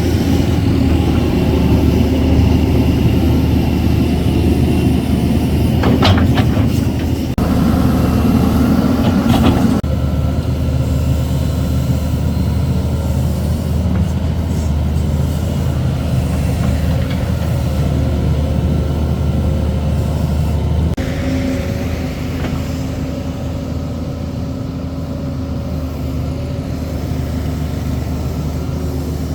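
Crane engine running steadily with a deep hum, its note and load shifting a few times. There are brief sharper noises around six and nine seconds in.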